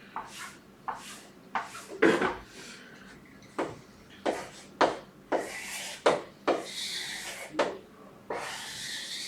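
Writing strokes drawing a diagram: a run of short, quick scratchy strokes with a few longer rubbing ones in the middle and near the end.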